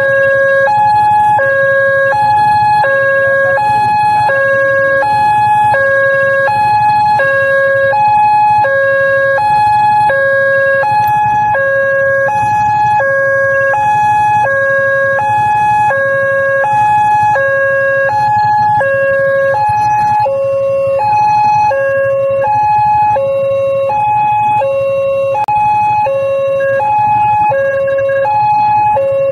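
Railway level-crossing warning alarm sounding: a two-tone electronic alarm alternating steadily between a lower and a higher note, each held about half a second. Under it is the low hum of idling motorcycles and cars.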